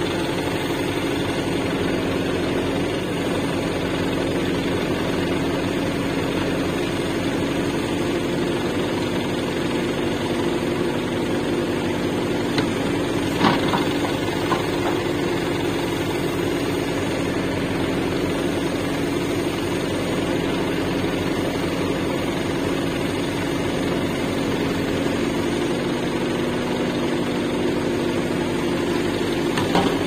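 Backhoe loader's diesel engine running steadily with a constant hum while its bucket digs into soil, with a couple of brief knocks about halfway through.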